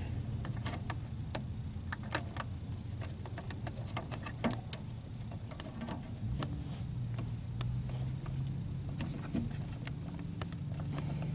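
Light clicks and taps of small items being handled and set down while an RV fridge is cleared out. A low steady hum runs underneath.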